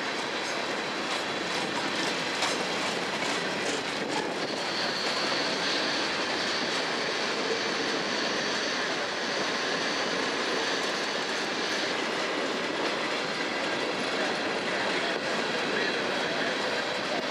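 Freight train of covered hopper cars rolling past at steady speed, with a continuous noise of steel wheels on the rails. A faint high squeal joins in about four seconds in and fades out about twelve seconds in.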